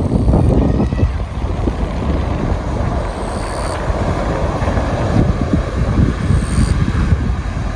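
Strong wind buffeting the microphone: a loud, uneven low rumble. A couple of short, high peeps come through about three and six and a half seconds in.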